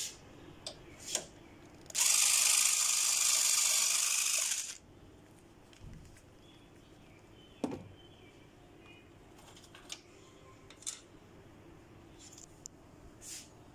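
Tool work on the radiator support bolts with a 10 mm socket: scattered clicks and knocks, and one loud, steady, noisy burst about two seconds in that lasts close to three seconds and stops abruptly.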